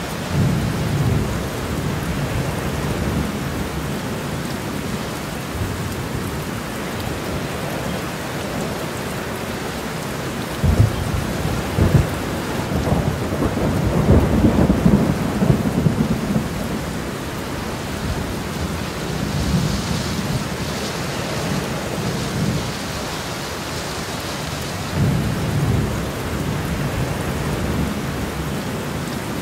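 Steady rain with rolling thunder. A long rumble comes about a third of the way in, opening with two sharp cracks, and shorter rumbles come near the start and near the end.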